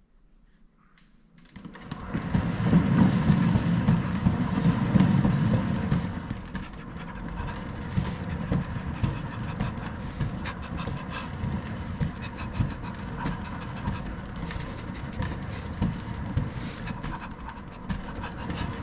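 Cat exercise wheel turning under a walking cat, its rollers rumbling and clattering steadily. It starts about a second and a half in, is loudest for the next few seconds, then settles to a steadier rumble.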